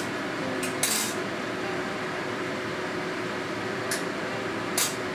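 Metal skewers scraping and clinking against a metal baking tray as skewered yellowtail is twisted loose on them: a few short, sharp scrapes, one near the start, one about a second in, and two near the end, over a steady low hum.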